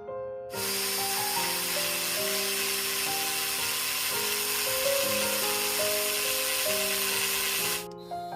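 A small power tool runs steadily with a hissing, grinding noise for about seven seconds, starting just after the beginning and cutting off abruptly near the end. Piano background music plays throughout.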